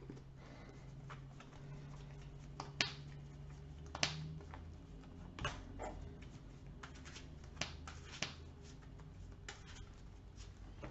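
Faint, scattered clicks and taps of trading cards being handled on a table, over a low steady room hum.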